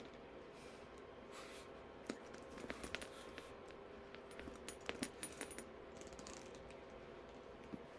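Faint, scattered metallic clinks and ticks from a handbag's metal hardware (clasps, zipper pulls, rings) knocking together as the bag is handled, in two short clusters a few seconds apart.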